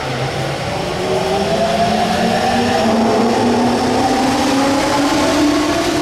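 JR East E231 series 800-subseries electric train accelerating away: the whine of its Mitsubishi IGBT VVVF inverter, the so-called 'ghost inverter', climbs steadily in pitch as several tones together. It gets louder about a second in.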